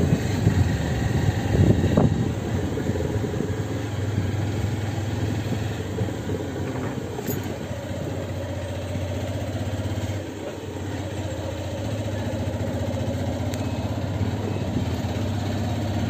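Car engine running steadily at low speed as the car rolls along a dirt road, with a low hum and tyre noise. The first couple of seconds are rougher, with a knock from a jolt about two seconds in.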